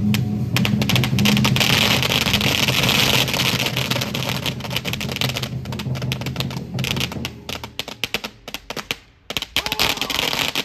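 A string of firecrackers going off in a rapid crackle that thins to scattered pops near the end, over a steady low drone for the first part.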